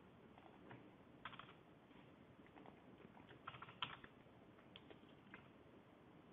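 Faint computer keyboard typing and clicks as a DNS record is entered: a few scattered soft clicks, with a quick cluster about three and a half seconds in.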